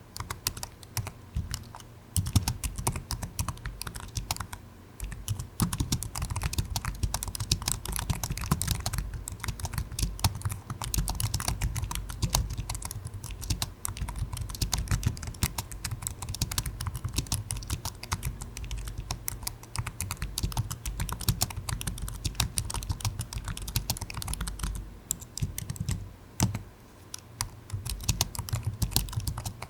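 Computer keyboard being typed on steadily: a fast, irregular run of key clicks, pausing briefly now and then.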